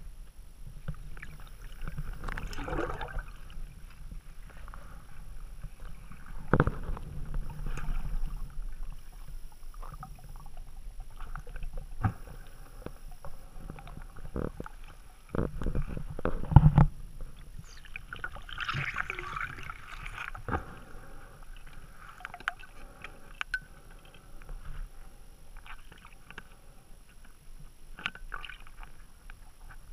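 Underwater sound heard through a camera's waterproof housing as a diver moves along the bottom: irregular muffled knocks and thumps over a low rumble, with bursts of bubbling a few seconds in and again about two-thirds through. The loudest thumps come a little past halfway.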